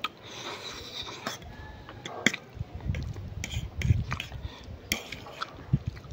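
A metal fork clinking and scraping against a ceramic plate as instant noodles are gathered up, with a few sharp clicks. Close-mic chewing of a mouthful of noodles starts about two and a half seconds in.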